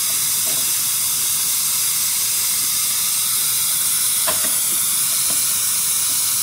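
Steady high-pitched hiss of background noise, with a couple of faint clicks about four and five seconds in as the plastic diaphragm torque tool is handled on the pump.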